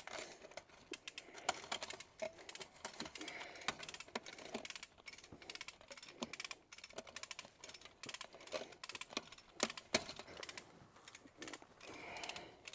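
Barbed wire being handled as its loose tail is wrapped back around the strand: a string of light, irregular clicks and ticks of wire on wire.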